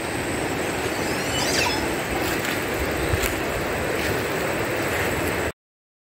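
Steady outdoor rushing noise with a brief high chirp about a second and a half in; the sound cuts off abruptly shortly before the end.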